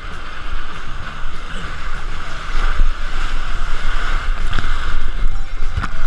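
Water rushing and splashing around an action camera riding at water level down a rapids-style water slide, a steady loud hiss of churning water with a couple of sharp knocks near the end.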